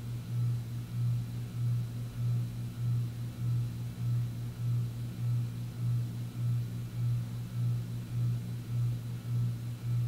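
SMC DC42 42-inch ceiling fan running, its motor giving off a lot of hum, a low tone that swells and fades about twice a second. Pretty noisy, which the owner finds typical of 1990s SMC fans.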